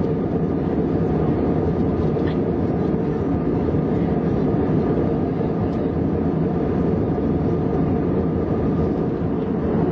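Cabin noise of an Airbus A320 airliner in flight: a steady, even rush of airflow and engine noise, deep and unchanging.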